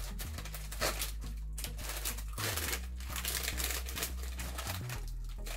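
A plastic snack packet crinkling in irregular bursts as it is handled and fingers rummage inside it.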